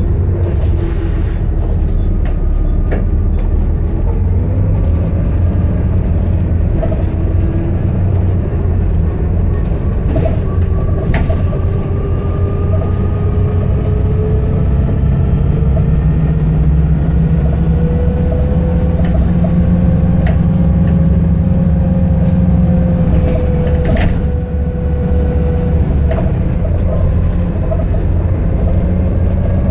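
A London bus's engine and transmission heard from inside the passenger cabin while under way: a steady low drone with a whine that rises and falls slowly as the bus speeds up and slows down. Occasional short rattles and clicks come from the bodywork.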